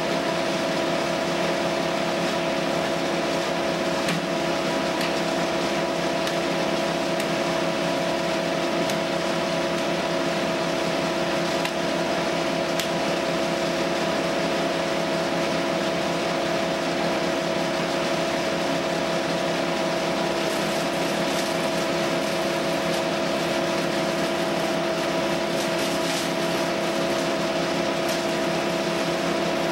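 An engine running at a constant speed, giving a steady drone with an even hum that does not change.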